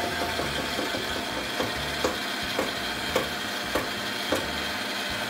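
Sunbeam stand mixer running at high speed, its beaters working a heavy bread dough in a steel bowl, with a regular knock nearly twice a second.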